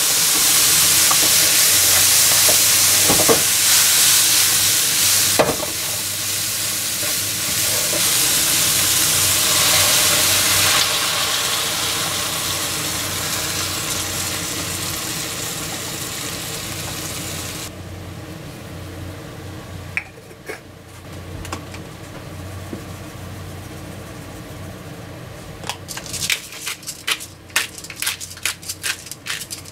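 Vegetables, mushrooms and sausage sizzling loudly in a hot frying pan; the sizzle dies down once milk is poured over them and drops off sharply about eighteen seconds in, leaving a quieter simmer. Near the end comes a quick run of clicks.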